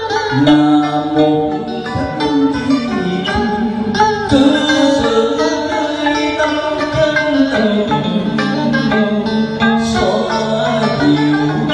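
A man singing into a microphone, amplified, with an electronic keyboard and a plucked guitar accompanying him in a continuous song.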